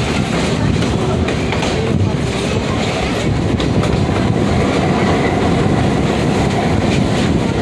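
Excursion train running along the track, heard from on board a passenger car: a steady rumble of wheels on rails with light clickety-clack.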